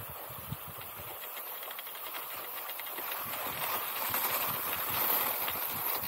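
Fischer cross-country skis sliding along groomed classic tracks, a steady hiss of skis on snow that grows louder around the middle.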